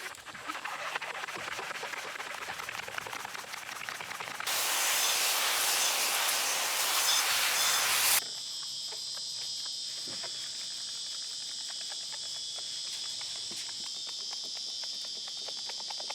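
Rubbing and scrubbing on car paint. About four seconds in, an abrupt cut to a louder, steady hiss for about four seconds. Then insects keep up a steady high drone.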